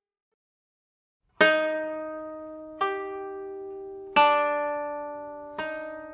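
Koto music: after about a second of silence, four single plucked notes sound at an even, slow pace, each ringing out and fading before the next.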